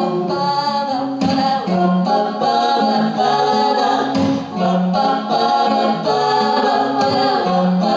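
Music: a pop song with vocals over a steady accompaniment, the low notes changing about once a second.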